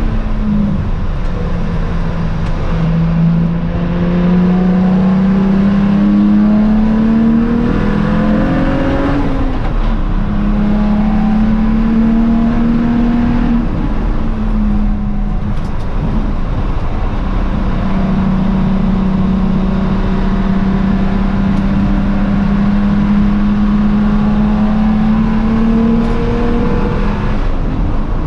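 BMW E92 335i race car's N54 twin-turbo straight-six at racing speed, its pitch climbing under acceleration and dropping sharply at each gear change. A long, fairly steady stretch follows in the second half, with a rougher, noisier patch in the middle.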